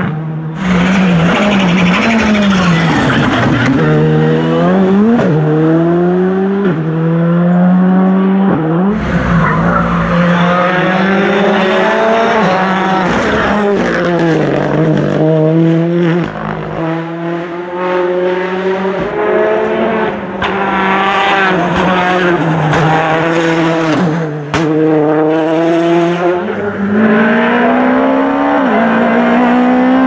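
Rally cars driven hard one after another. Each engine's pitch climbs and drops back with every gear change as the car accelerates past, and there are abrupt jumps where one car's pass gives way to the next.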